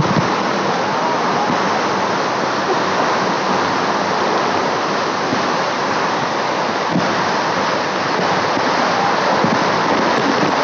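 Waterfall: a loud, steady rush of falling water with no let-up.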